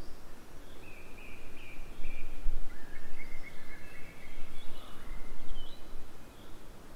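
Wild birds calling, with several short whistled notes and a few longer trilled phrases, over a steady low rumble.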